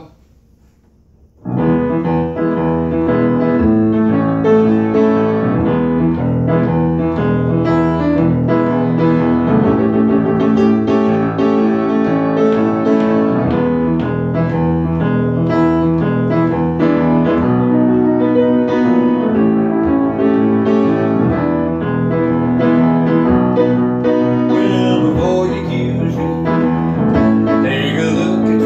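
Piano playing a blues, starting about a second and a half in and carrying on at a steady, even level.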